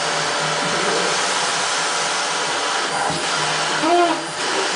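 Vacuum cleaner running with a steady whooshing hum, and a short voice-like sound about four seconds in.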